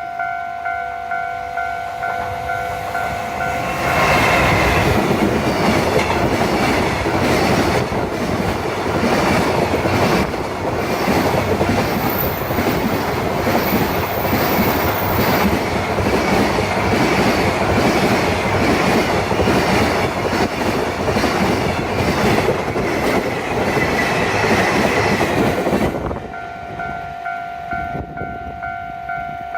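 A Japanese level-crossing warning bell rings in a steady repeated ding-ding, then from about four seconds in a freight train, an EF210 electric locomotive hauling a long string of container flatcars, passes close by. Its wheels clatter over the rail joints and drown the bell for about twenty seconds. The bell is heard again near the end as the train clears the crossing.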